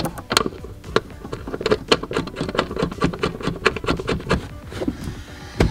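Socket ratchet clicking in quick, irregular runs as a 14 mm bolt is driven into the vehicle body at the cargo tray frame's front mounting point, with a sharper click near the end.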